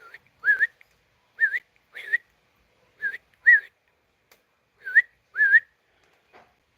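Whistling: four pairs of short notes, each one sweeping upward.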